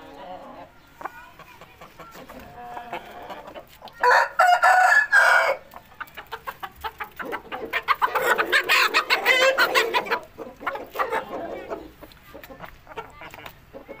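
Chickens of Pakistani and Thai breeds: a rooster crows once, about four seconds in, for about a second and a half. Then comes a few seconds of loud clucking and squawking, with quieter clucks around it.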